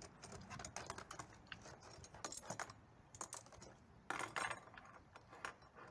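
Faint, scattered clicks and clinks of oxy-acetylene torch tips and small metal tools rattling in a plastic tool tray as they are lifted out and set down on a table.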